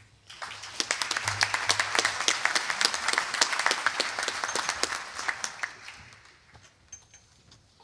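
Audience applauding, a dense patter of many hands clapping that starts about half a second in and dies away about six seconds in.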